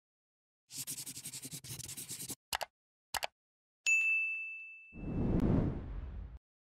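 Animated-intro sound effects: scratchy brush-stroke scribbling for about a second and a half, then two short scribbles. About four seconds in, a single bright notification-bell ding rings out and fades over about a second and a half. It is followed by a low rushing whoosh.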